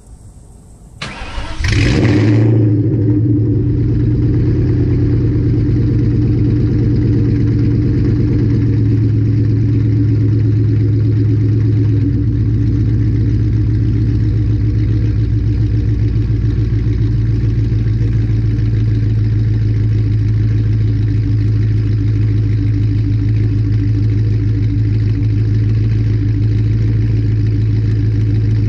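Ford Mustang with a Borla ATAK cat-back exhaust starting up about a second in, then idling steadily through the exhaust.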